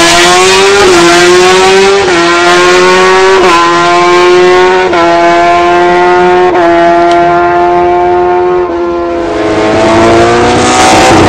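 Sport motorcycle engine at full throttle on a drag run, its pitch jumping at each upshift about every second and a half. Near the end it drops away and another engine's note climbs as it revs.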